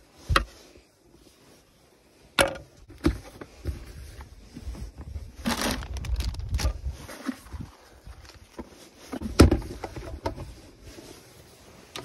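Camp kitchen gear being handled: a few sharp knocks as a bamboo cutting board and a small plastic cooler are moved and set down, with plastic bags rustling around the middle.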